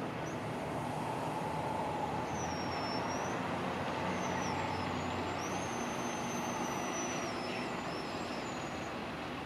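Diesel engine of a Sperry rail-inspection hi-rail truck running at low speed as the truck pulls off the track and drives away, a steady low rumble that eases slightly near the end.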